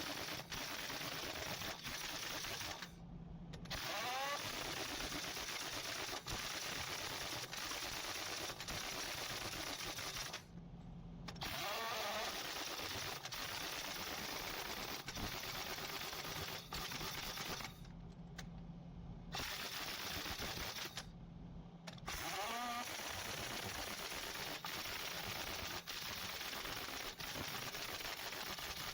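Drill running with a rapid, even hammering. It cuts out briefly four times and starts again, with a short rising whine as it picks up speed.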